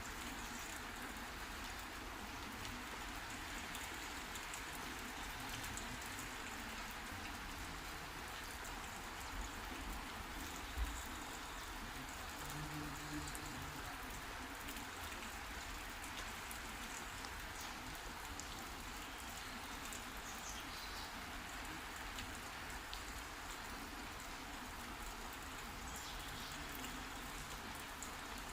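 Steady heavy rain falling and pattering on surfaces. A single low thump about eleven seconds in.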